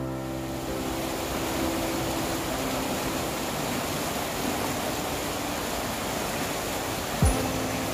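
Rushing floodwater of a swollen river churning over a low weir in a steady roar, the river running high after a typhoon. Near the end there is a brief low thump that drops in pitch.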